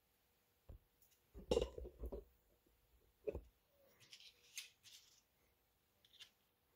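Light handling sounds as a thin brass photo-etch strip and a small plastic strip are picked up and laid on the work surface: a few soft taps and clicks, with a duller bump about a second and a half in.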